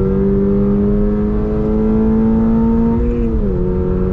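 2022 Toyota GR86's 2.4-litre flat-four engine pulling hard, heard from inside the cabin, with a high-pitched exhaust note. The note climbs slowly, then drops quickly about three seconds in at a gear change and runs on at the lower pitch.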